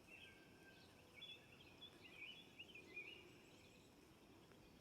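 American robin singing faintly: a run of short warbled phrases over a quiet outdoor background.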